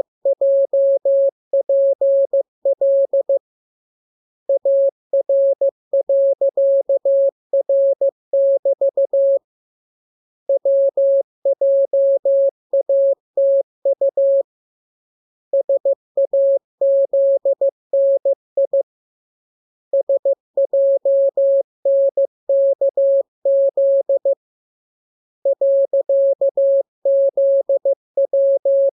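Morse code sent as a steady pure tone of about 600 Hz keyed in dots and dashes. The characters come in groups of a few seconds each, with a pause of about a second between groups: code-practice reception text.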